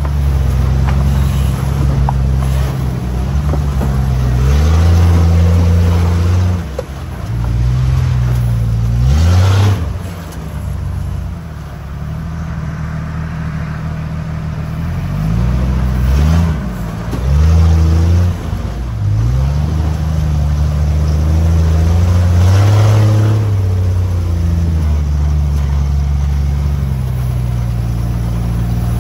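Off-road vehicle's engine working over rough ground, its low note rising and falling with the throttle, with sharp revs about nine and sixteen seconds in.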